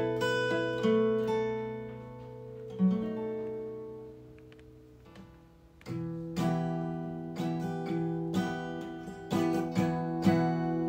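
Guitar music over the closing credits. Picked notes ring and die away, fading almost to nothing around four to six seconds in, then strummed chords come back in louder.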